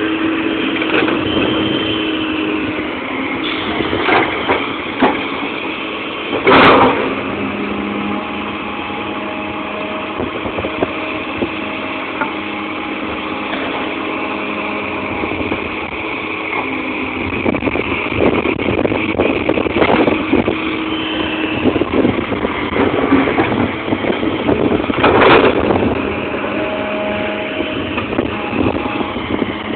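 Fiatallis FX215 hydraulic excavator working: its diesel engine runs under load, with steady tones shifting in pitch as the machine digs, swings and dumps. Two loud knocks come through, one about six and a half seconds in and one near twenty-five seconds.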